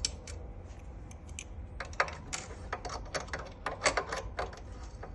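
Irregular light metallic clicks and taps of a small adjustable spanner and other hand tools working on an e-bike front hub motor's axle nuts, busiest around the middle.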